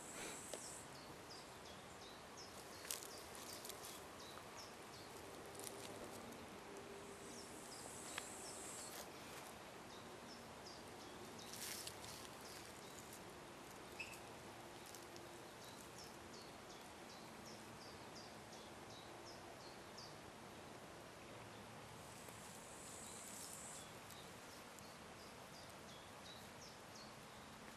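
Quiet outdoor ambience with many faint, short, high chirps repeating through it, a few brief high buzzing bursts, and occasional sharp clicks and rustles of handling.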